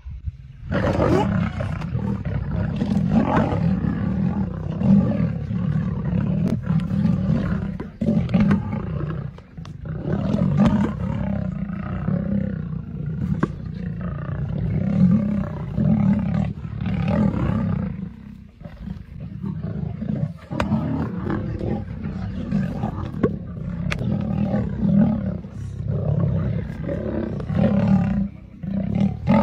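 Lions growling and roaring with hardly a break, swelling and easing every second or two, with a few short lulls.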